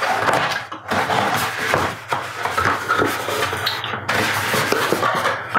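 Packaging and parts of a lightstrip kit being handled on a desk: steady rustling and scraping of plastic and cardboard, with many small knocks and clatters.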